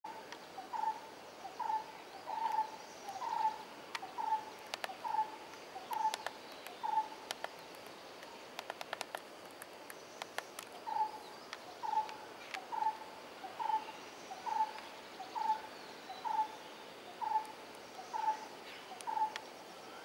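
A bird calling one short, clear note over and over, a little more than once a second, in two runs with a pause of about four seconds between them. Faint clicks are scattered through the pause.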